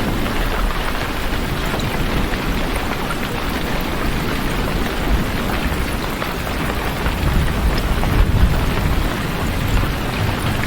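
Steady, heavy rain falling, with a low rumble underneath that swells and is loudest about eight seconds in.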